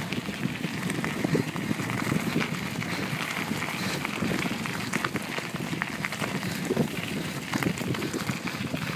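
Bicycle tyres rolling downhill over loose gravel, a steady crunching crackle of many small clicks, with the bike rattling.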